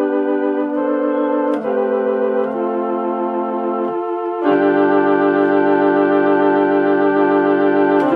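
Organ playing held chords that change every second or so, the notes slightly wavering. About four and a half seconds in, deeper bass notes come in and it gets louder.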